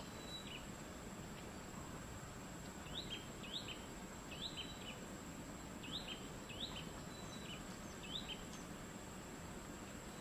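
A bird calling repeatedly, a short phrase every second or two: a quick rising note followed by a few short, lower notes. Under it runs a steady, even background noise with a thin, constant high-pitched tone.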